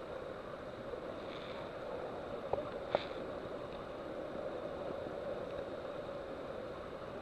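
Steady wash of seawater echoing inside a limestone sea cave, with two short clicks about two and a half and three seconds in.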